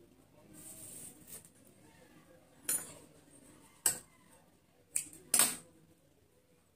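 A brief soft rustle, then four sharp clicks and clinks of small hard objects handled on a tabletop, spread over the second half, the last one a little longer.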